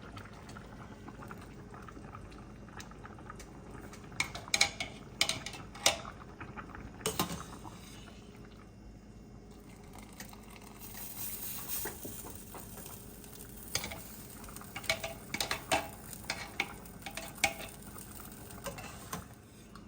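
A metal ladle clinks and scrapes against cooking pots as parboiled rice is scooped out of its boiling water and layered into a pressure cooker. The water bubbles steadily underneath. The clinks come in two clusters, a few seconds in and again past the middle.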